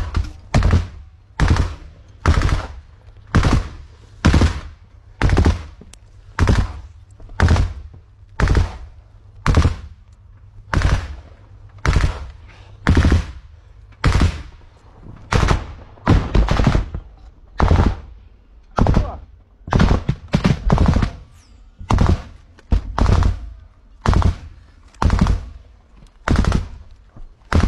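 Rifle fire at close range: a steady run of single shots, about three every two seconds, with a few fired in quick pairs.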